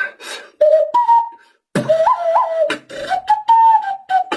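Beatboxing: a whistle-like, flute-style melody with sharp mouth clicks and kicks. A short phrase is followed by a brief pause, then a longer phrase with two quick upward flicks in pitch.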